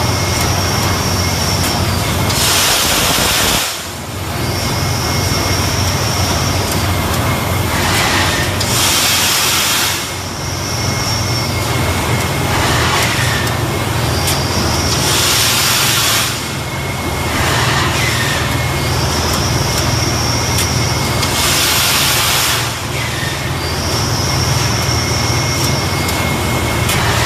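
Industrial thermoforming machine running through its cycle: a steady low hum under a faint high whine, broken four times by a loud burst of air hiss about every six and a half seconds.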